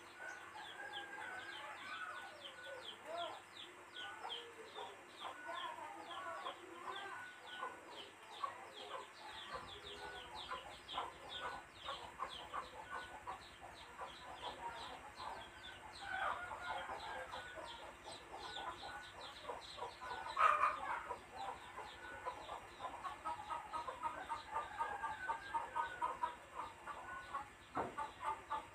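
Chickens clucking, with one louder squawk about two-thirds of the way through, over a fast, high-pitched chirping.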